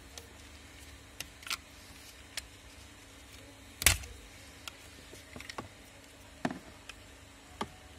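Scattered clicks and knocks of plastic wiring connectors and parts being worked with a screwdriver, as a steering-column switch assembly is unplugged and freed. About eight separate clicks, the sharpest about four seconds in.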